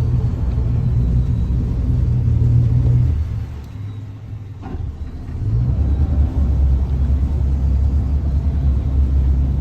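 Twin Yamaha 225 outboard engines running at low speed under joystick control, a deep steady rumble. It dies down about three and a half seconds in and comes back lower about two seconds later as the engines shift and throttle to steer the boat.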